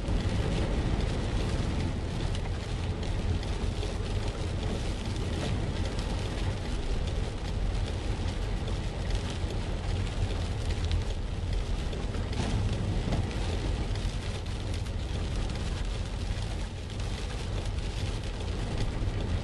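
Rain pattering on a car's windshield and roof, heard from inside the cabin, over the steady low rumble of the car driving on a wet road.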